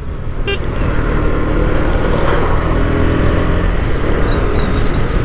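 KTM Duke 250's single-cylinder engine running steadily while the motorcycle is ridden along the road, under a loud, even rush of wind noise over the microphone. A short click about half a second in.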